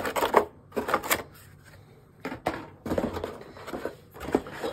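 Cardboard and molded paper-pulp packaging being handled and lifted out of a box, then a metal microphone boom arm pulled from its tray. Irregular scrapes, rustles and knocks come in a cluster at the start and again from about halfway in, with a quieter gap between.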